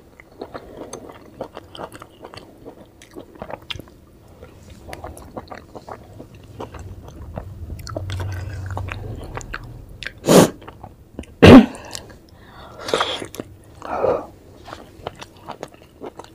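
Close-miked wet chewing of steamed vegetable momos, with many small mouth clicks and lip smacks. A few much louder sudden mouth sounds come about two-thirds of the way through.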